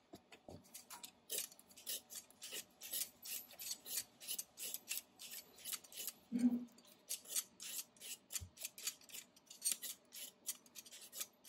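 Y-shaped vegetable peeler scraping the skin off a potato in quick repeated strokes, about three a second.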